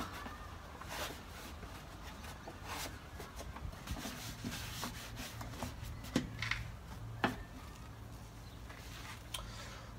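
A rag rubbing and wiping out the inside of a plastic car air filter box, with a few light knocks of the plastic airbox lid being handled.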